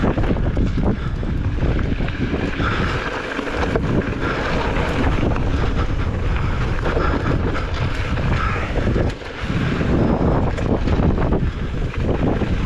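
Strong gusting wind buffeting the microphone over the rattle and crunch of a mountain bike running down a rocky trail. The wind drops briefly about nine seconds in.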